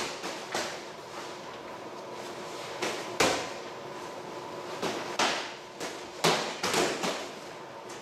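Boxing gloves smacking against gloves and headgear in sparring: irregular punches landing, the hardest about three seconds in and just after six seconds.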